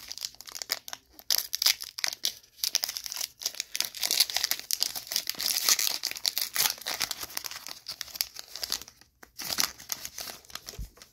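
Foil wrapper of a Pokémon TCG Paldea Evolved booster pack crinkling and tearing as it is ripped open by hand, a dense run of crackles that pauses briefly near the end.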